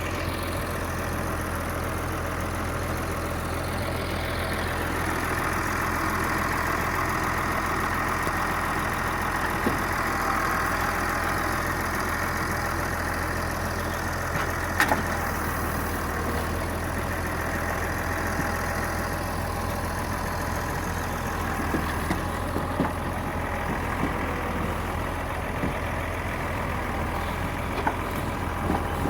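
Engine running steadily to drive a forestry crane loading logs, with a few sharp knocks: a strong one about halfway and several more near the end.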